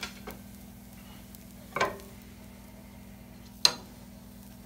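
Nonstick frying pan handled on a gas stove as the burnt pancake scraps are dealt with: two short, sharp clanks of pan and utensil, about two seconds in and near the end, over a faint steady hum.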